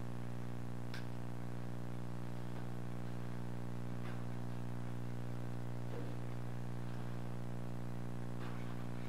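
Steady low electrical hum, with a faint click about a second in.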